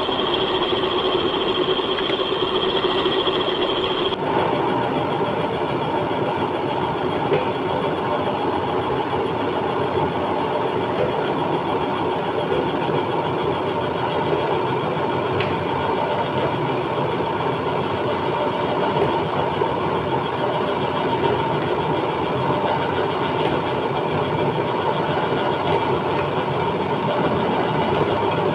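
Milling machine running steadily: a continuous mechanical hum with several steady whining tones. About four seconds in, the sound changes abruptly and a high whine drops out.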